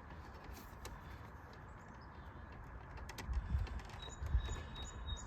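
Faint clicks and dull knocks of hands working a piece of plastic interior trim loose in a car's centre console, over a low steady rumble, with a few heavier bumps in the second half.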